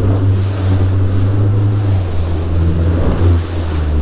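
A bay boat's outboard motor running at speed with a steady low hum, its pitch dipping slightly about halfway through, over the rush of water off the hull and wind on the microphone.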